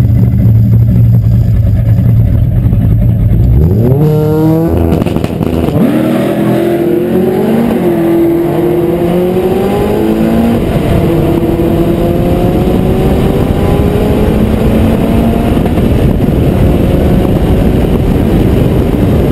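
Turbocharged Mitsubishi Galant VR-4 four-cylinder engine at a drag-strip launch. It holds a steady note for about four seconds, then the revs climb sharply and it pulls through several upshifts, each a brief dip in pitch and a rise again. Near the end the engine note gives way to wind and road noise on the car-mounted microphone.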